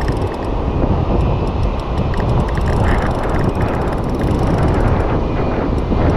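Strong wind buffeting the camera microphone on an open beach, a loud, steady rumble with surf hiss behind it. Faint quick clicks come through above it throughout.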